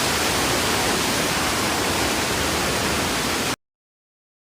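Steady, even rushing hiss with no rhythm or tone, cutting off abruptly about three and a half seconds in.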